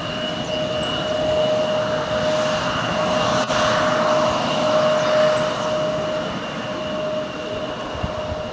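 Embraer regional jet's turbofan engines running, a rushing noise with a steady whine that swells to a peak midway and then eases, under strong wind buffeting the microphone.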